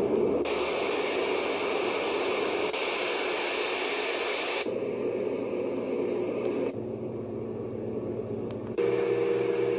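Miniature white noise machine playing its built-in sounds: a steady hiss that changes abruptly to a different noise sound four times as the selections are stepped through, the later ones duller with a steady low hum.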